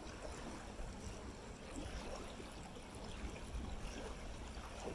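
Water trickling and lapping along the hull of an inflatable dinghy moving against the tide under a near-silent electric trolling motor, with a low rumble underneath.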